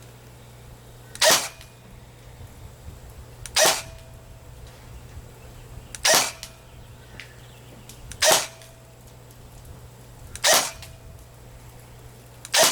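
Airsoft electric M4 rifle firing single shots: six sharp cracks at an even pace, about one every two seconds.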